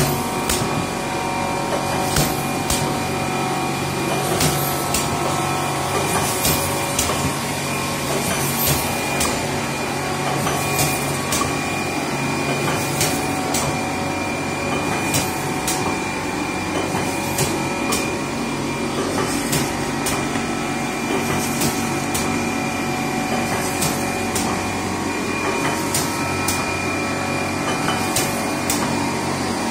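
Pneumatic conveyor machine for cardboard blanks running steadily: a constant motor hum under a pair of sharp clacks about every two seconds as its air cylinders cycle.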